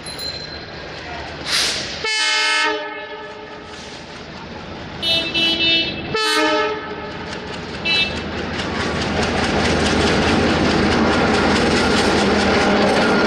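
Diesel-electric locomotive horn blowing as the train approaches a level crossing: a blast about two seconds in, a few short toots, then a second blast about six seconds in. From about nine seconds the engine and the clatter of the wheels swell steadily louder as the locomotive and coaches come past close by.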